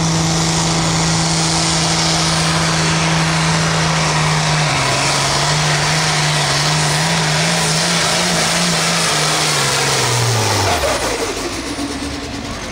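Pro field pulling tractor's engine running flat out under load down the track, a loud steady note that steps down in pitch about five seconds in and wavers. It winds down and fades about eleven seconds in as the tractor comes to a stop at the end of the pull.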